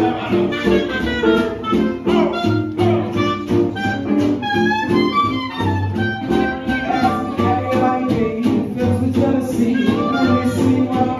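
Small live jazz band playing an upbeat swing tune, with a horn carrying a sliding melody over acoustic guitars and a walking upright bass.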